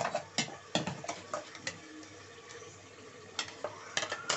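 Steel ladle clinking against the side of an aluminium pressure cooker while mutton and spinach are stirred: a run of sharp clinks, a pause around the middle, then more clinks near the end.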